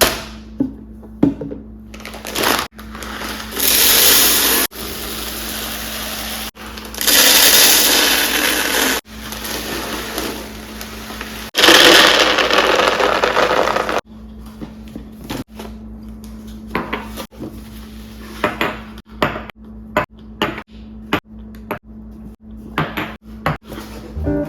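Kitchen containers being filled and handled: three rushing pours of a second or two each, then a string of light clicks and knocks as containers and lids are set down.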